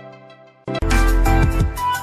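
Background music: a soft plucked melody fades out, and about two-thirds of a second in a louder track with heavy bass and a beat comes in.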